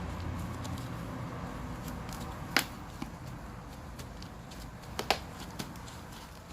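Several sharp clicks against a low background hum. The loudest comes about two and a half seconds in, and a close pair follows about five seconds in.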